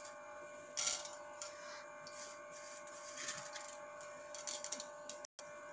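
Fenugreek seeds frying in hot oil in a frying pan, giving a faint, irregular sizzle and crackle over a steady low hum; the sound cuts out briefly about five seconds in.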